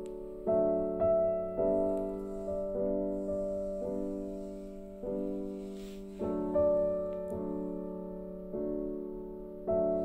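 Background piano music: slow chords struck every second or so and left to ring out and fade.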